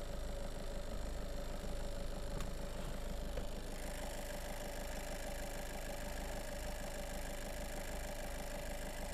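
VW 1.6 TDI four-cylinder common-rail diesel idling under the open bonnet with an even, steady diesel clatter. It runs smoothly and evenly, which the seller takes as a sign of a healthy engine. About two and a half seconds in there is a brief knock as the plastic engine cover is lifted off, and after it the engine sounds brighter and more open.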